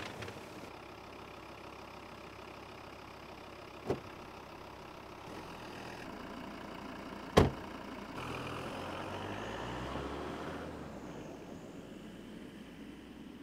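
Car engine idling, with a small knock about four seconds in and a loud car door slam about halfway through. The engine then rises for a couple of seconds as the car pulls away, and fades.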